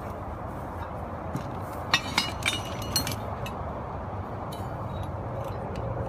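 Metal tent poles or fittings clinking together as they are handled: a handful of sharp clinks about two to three seconds in, with a steady low background noise throughout.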